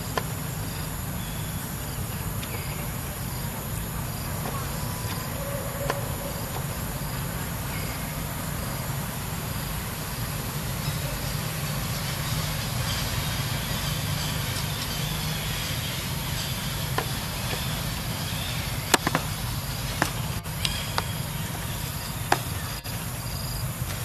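Insects chirping in an evenly repeating pattern over a steady low hum, with a few sharp clicks near the end.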